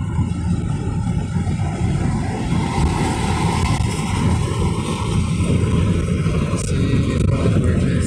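Steady road noise inside a car's cabin at freeway speed: a low rumble of tyres and engine, heard through the closed side window.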